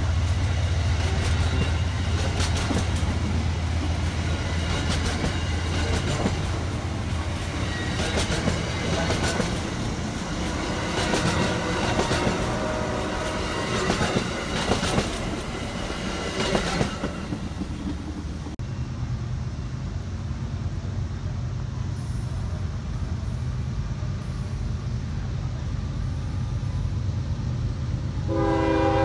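A passenger train's stainless-steel coaches roll past close by, the wheels clicking regularly over the rail joints. After an abrupt cut comes a quieter, low steady hum, and near the end a train horn starts sounding a chord.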